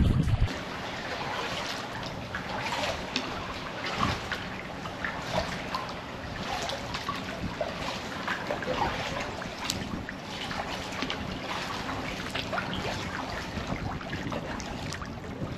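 Kayak paddling on calm sea water: water trickling and lapping around the hull, with many small irregular drips and splashes from the paddle strokes.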